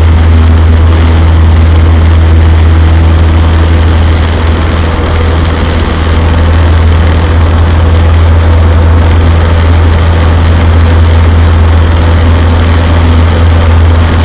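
Cessna 152's four-cylinder Lycoming engine and propeller droning steadily in flight, heard inside the cabin.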